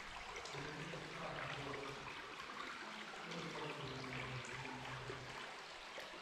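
Water trickling and dripping inside a sea cave, a steady splashy hiss. Faint low held musical notes sit underneath.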